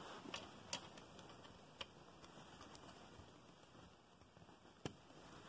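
A handful of short, sharp clicks of hard plastic model pieces being handled and fitted together, at irregular intervals against near silence, the loudest just under a second in and about five seconds in.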